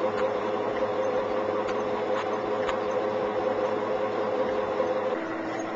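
Homemade transistor-switched multi-coil pulse motor running with a steady hum and faint clicks now and then. About five seconds in, its pitch drops and it gets a little quieter.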